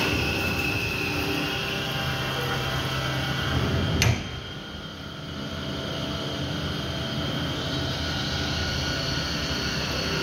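CNC vertical milling machine cutting a 6061 aluminium block: a steady machine hum with a faint high whine. There is a sharp click about four seconds in, after which the sound is quieter.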